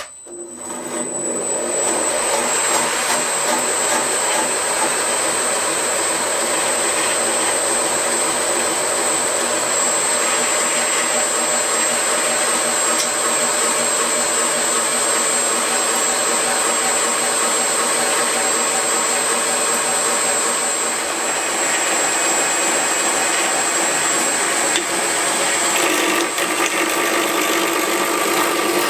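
Knife maker's belt grinder spinning up over about two seconds, then running with its abrasive belt over a small contact wheel, grinding steadily. A thin high whine fades out about three quarters of the way through, and the sound shifts near the end.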